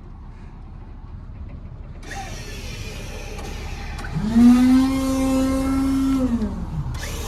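AutoCrane's cable-over-hydraulic electric crane motor winding up about four seconds in, running at a steady whine for about two and a half seconds, then winding down, over a low engine rumble.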